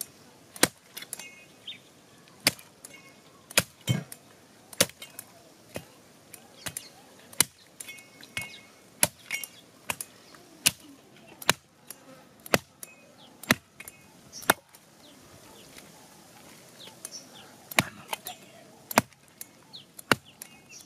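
A broad-bladed knife chopping through raw lamb ribs into a wooden log block: sharp single chops about once a second, with a pause of about three seconds late on. Short bird chirps are heard between the strokes.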